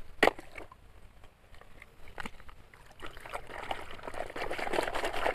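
A sharp plastic clack near the start as a toy car drops into a plastic toy truck bed, then, from about halfway through, water sloshing and splashing as a plastic toy monster truck is swished back and forth through shallow muddy water.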